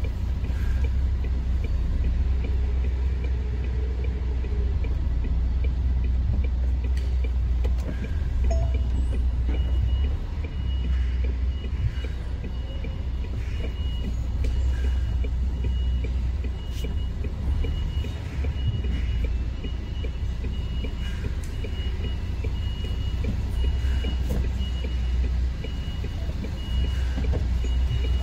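Articulated lorry's diesel engine running low and steady while reversing slowly, with the repeated high beeps of its reversing alarm, clearest from about a third of the way in.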